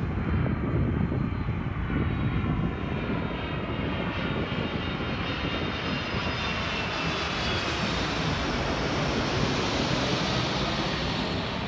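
Jet airliner on final approach passing close by, a steady engine rush with a faint whine that slowly slides down in pitch. Gusty gale-force wind rumbles on the microphone underneath.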